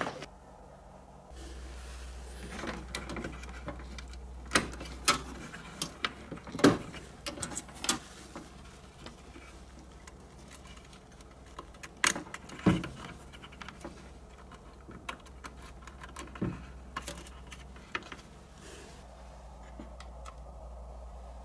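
Irregular small clicks and taps of hands handling wires and metal terminals as the speaker wires of a homemade jar subwoofer are hooked up to a turntable's spring-clip speaker terminals. A faint low hum sits underneath from about a second in.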